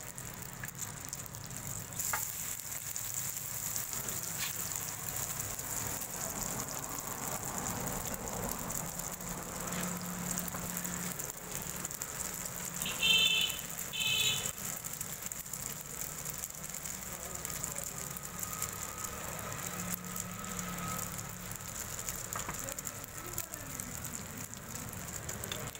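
Egg paratha frying in oil on a large iron tawa: a steady sizzle, with an occasional knock of the metal spatula. Two short high beeps about a second apart near the middle are the loudest sounds.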